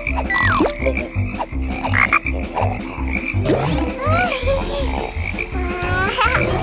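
Cartoon frog croaking sound effects with a regular low pulse of about two and a half beats a second. Several sliding pitched calls break in: one falling near the start, others rising and falling about four seconds in and again near the end.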